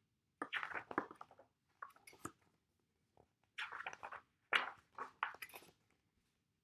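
Pages of a picture book being opened and turned by hand, the paper rustling and flapping in several short bursts with brief pauses between.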